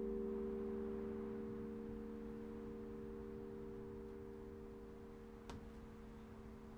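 Carillon bells humming on after the last chord of a piece, their low tones slowly dying away. A brief click about five and a half seconds in.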